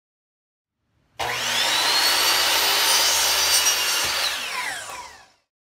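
Electric miter saw spinning up with a rising whine about a second in and cutting through a wooden board, then winding down with a falling whine and stopping near the end.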